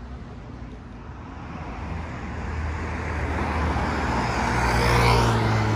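Road traffic with a car passing close by: its noise swells from about two seconds in, peaks near the end, and drops in pitch as it goes past, over a steady low rumble.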